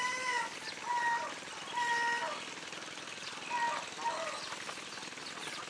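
Chickens calling: about five short pitched clucks and cries, spaced a second or so apart, over a steady outdoor hiss.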